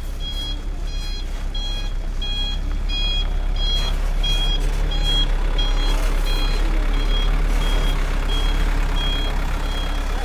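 Dump truck reversing: its reversing alarm beeps about twice a second over the steady low drone of the running engine, which grows louder as the truck comes closer.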